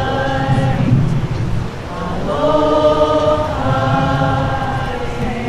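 Voices chanting in a series of long held notes, each sustained for a second or so with short breaks between.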